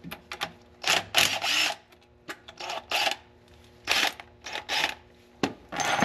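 Cordless power driver run in short spurts, about ten in six seconds, backing out the bolts that hold an automatic transmission's valve body.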